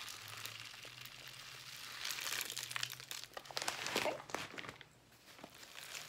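Birdseed poured from a plastic bag into a water bottle: a dense, crackly patter of seeds with the bag crinkling, heaviest a couple of seconds in and stopping about five seconds in.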